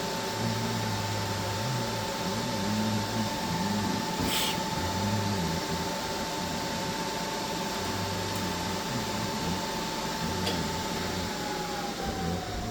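AC TIG welding arc on aluminum, a steady hum with hiss and one held tone that drops in pitch near the end.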